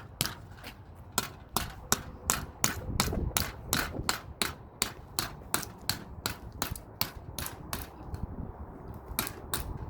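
A hammer repeatedly striking a shaken-up soda, about two to three sharp hits a second, to build pressure until it bursts. The strikes pause briefly near the end, then start again.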